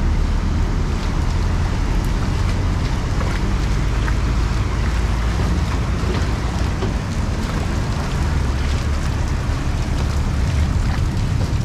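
Heavy rain falling steadily on a flooded street, with wind buffeting the microphone in a low rumble that swells and eases.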